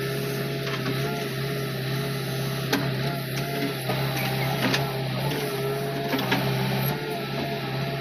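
JCB 3DX backhoe loader running steadily, heard from the operator's cab, with a whine that wavers slightly in pitch as the backhoe levers are worked. A few sharp clicks and knocks come through, about three seconds in, near the middle and later on.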